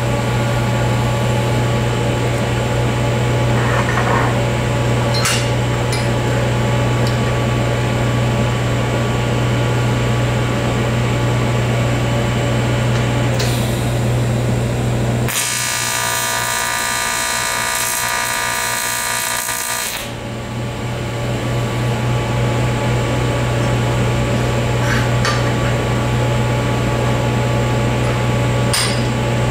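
A steady low electrical hum with a few light metal clicks. For about five seconds past the middle it gives way to the buzzing hiss of an AC TIG arc welding aluminium.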